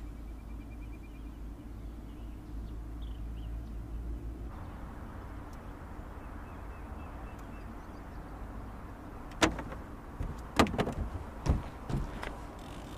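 Steady low background rumble, then from about nine and a half seconds in a handful of sharp knocks and clatters on the aluminum jon boat as the angler moves across the deck and lifts a rod from its holder to answer a bite.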